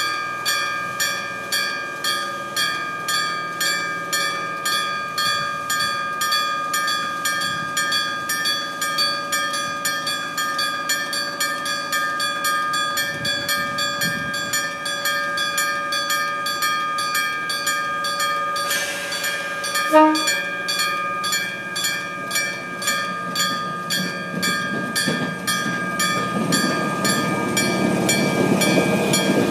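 Electromechanical level-crossing warning bell, a bell struck mechanically, ringing in a steady, evenly repeated rhythm. There is a brief loud spike about two-thirds of the way through, and near the end a train's running noise grows louder as it nears the crossing.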